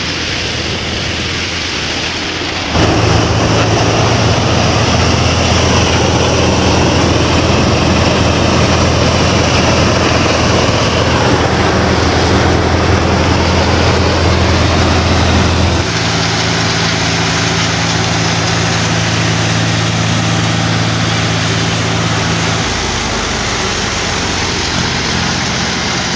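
Mahindra 265 DI tractor's three-cylinder diesel engine running steadily under load, driving a wheat thresher through its PTO shaft, with the thresher's dense threshing noise over the engine. The sound shifts abruptly about 3, 16 and 23 seconds in.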